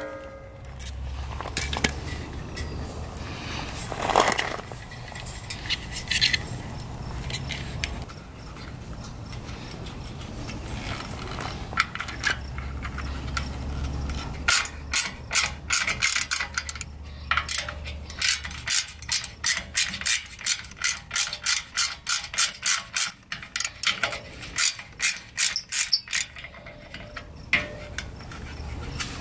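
Ratchet driver clicking in quick runs of several clicks a second as the nut holding an amber trailer side-marker light is tightened onto the frame. The clicking starts about halfway through, after a stretch of low steady rumble.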